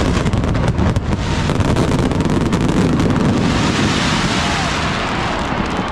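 Fireworks display at its finale: a dense, continuous rumble and crackle of many shells bursting together, with a few sharp bangs in the first second.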